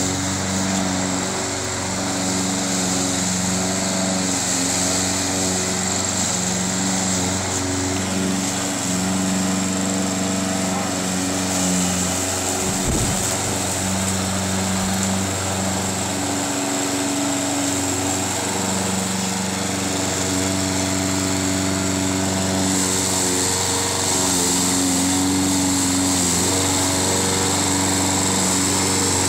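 Craftsman gasoline push lawn mower engine running steadily while cutting tall, thick grass, its hum wavering only slightly under the load.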